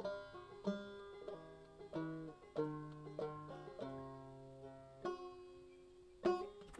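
Background music: a banjo picking out a melody, one plucked note after another, each ringing and fading.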